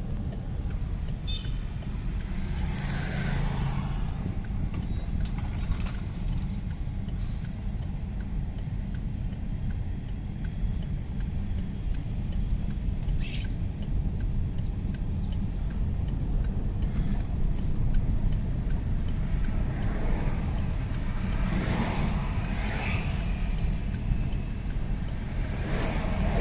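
Chevrolet Colorado's 2.8 turbo-diesel engine running with a steady low rumble.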